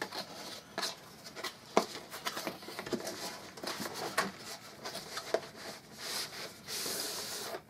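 A cardboard box being handled: scattered light taps and rustles of cardboard and plastic packaging, then a longer sliding scrape near the end as the inner tray is slid out of its cardboard sleeve.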